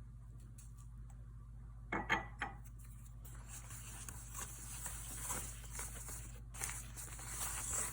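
Kitchen handling sounds while dough is readied for scoring: three or four light knocks about two seconds in, then steady rustling with small scattered taps.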